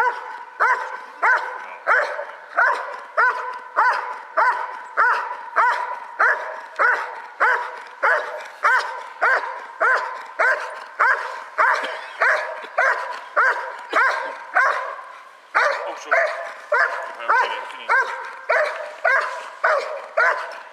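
Belgian Malinois giving a bark-and-hold at a protection-training helper: steady, rhythmic barking, about one and a half barks a second. The barking breaks off briefly about fifteen seconds in, then goes on.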